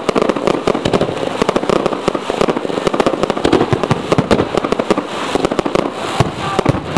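Fireworks going off in a rapid, continuous barrage of crackling and popping, many sharp small bangs in quick succession as aerial shells and crackle effects burst.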